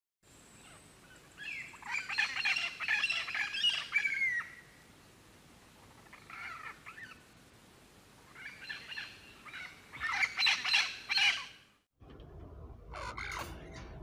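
Parrots squawking and screeching in two loud bursts with a quieter one between, cut off suddenly; after a short gap, a single brief call.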